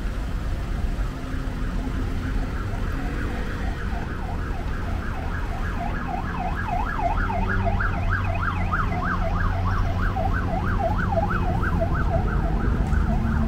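Emergency vehicle siren on a fast yelp, rising and falling in pitch about four times a second. It is faint at first and grows clearer and louder from about six seconds in, over the low rumble of street traffic.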